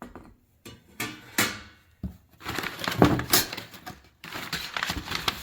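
Unpacking by hand: packaging rustling and crinkling in irregular bursts, with a few sharper knocks as the shield's stainless-steel parts are handled.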